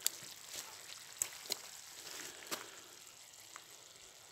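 Chicken in salsa sauce simmering in a wide pan over a campfire: a steady sizzling hiss with several sharp pops over the first three seconds, fading near the end.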